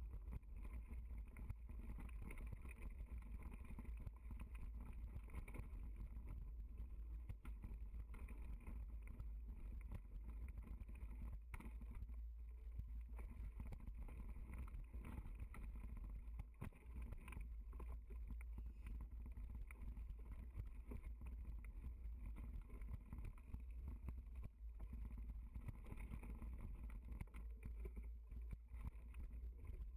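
Mountain bike riding over a dirt singletrack: a steady low rumble of tyre and wind noise with frequent small rattles and knocks as the bike runs over bumps.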